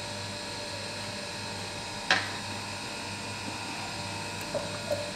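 Steady mechanical hum of machinery in a café, with one sharp knock about two seconds in and two faint soft knocks near the end.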